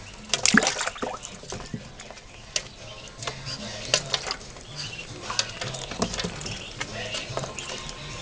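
Ducklings under three days old paddling and splashing in shallow water in a baking pan: an irregular patter of small splashes and clicks.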